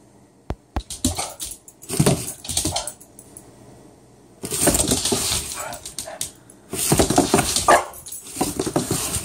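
Boston terrier barking repeatedly in bouts, louder and more continuous from about halfway in. There are two sharp clicks about half a second in.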